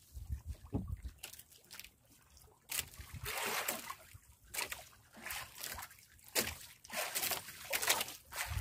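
Seawater sloshing and splashing against the side of a small wooden outrigger boat in irregular surges.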